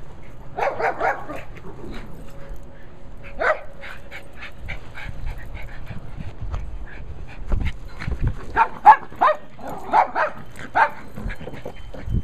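Small dog barking in short, high yips: a quick cluster about a second in, a single bark a few seconds later, and a run of loud barks over the last few seconds.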